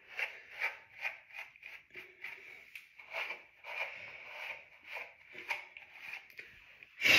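Hands rubbing and patting styling gel into short, kinky natural hair: a quick, uneven run of short rustles, about two or three a second. A louder bump comes near the end.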